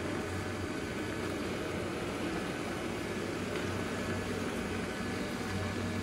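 XWOW R2 robot vacuum and mop running across a tile floor: a steady, very quiet whirr with a low hum underneath.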